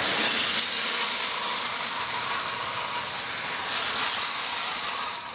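Vintage Marx electric O-gauge toy train running on its track: a steady whirring rattle of the locomotive's motor and wheels that cuts off suddenly near the end as the train stops.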